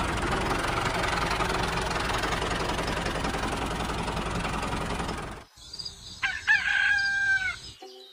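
A tractor engine running steadily, cutting off suddenly about five and a half seconds in. Then a rooster crows once.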